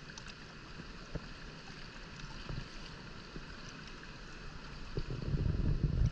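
Water swishing and lapping against a small wooden boat as it moves across shallow sea. About five seconds in, a louder low rumble of wind on the microphone comes in.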